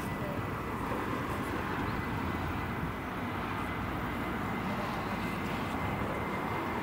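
Airbus A319 twin-engine jet on its takeoff roll at takeoff thrust: a steady rumble with a thin, high whine on top that creeps slightly upward in pitch.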